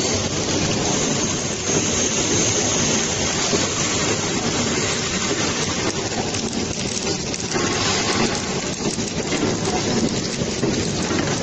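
Bottom-film flow-wrap packing machine running: a steady, dense mechanical rattle and clatter from its conveyor and sealing and cutting mechanism.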